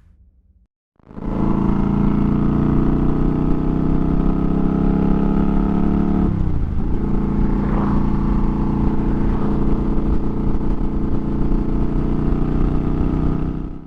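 Motorcycle engine running steadily under way; its pitch dips briefly and recovers a little past halfway.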